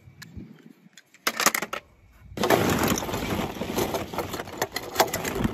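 Hollow plastic ball-pit balls clattering as a hand rummages through them: a few sharp knocks a little over a second in, then a continuous dense rattle from about two and a half seconds in.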